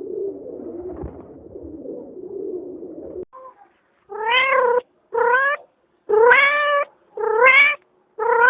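A domestic cat meowing five times in a row, about once a second, each meow rising in pitch. The meows follow a few seconds of low, uneven noise.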